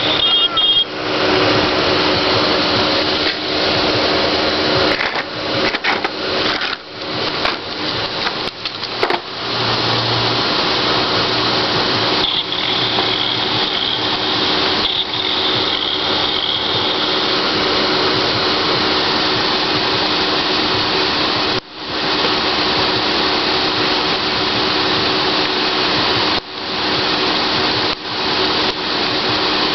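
A small motor running steadily with a constant rushing noise, dipping briefly a few times.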